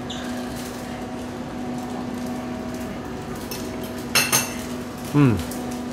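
A fork or spoon clinks once against a plate about four seconds in, over a steady room hum. A short falling vocal sound follows about a second later.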